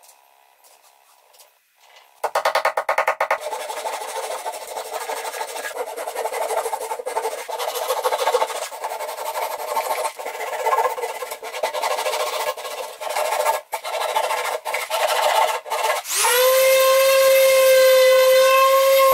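Handsaw strokes flush-cutting protruding wooden dowels on a pine surface, starting about two seconds in and coming in quick runs with short pauses. Near the end an electric random orbit sander starts up with a brief rising whine and settles into a steady high hum.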